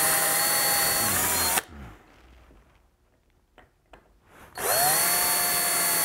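DeWalt 18-volt cordless drill boring holes into a solid maple drawer front, its motor running with a steady whine. It winds down about a second and a half in, then, after a quiet pause, rises in pitch as it spins up again about four and a half seconds in and keeps drilling.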